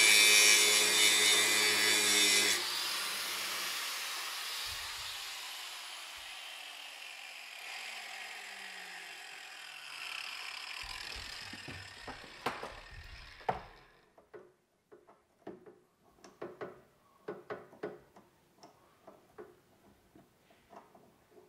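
Angle grinder grinding down the steel VANOS sprocket of a BMW M54 camshaft while it spins in a drill press, cutting 5 mm off its end. The grinding stops abruptly about two and a half seconds in, and a motor winds down with a slowly falling hum that fades over several seconds. Near the end there are scattered light clicks and knocks as the sprocket is handled in the chuck.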